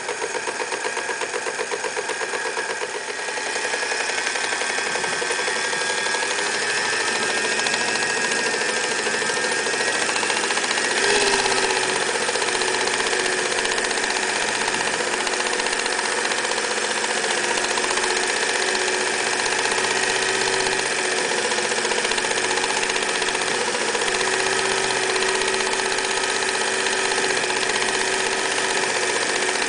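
Electric Singer 99K sewing machine running steadily and stitching through denim, its motor hum mixed with the rapid chatter of the needle bar. It picks up a little after about three seconds.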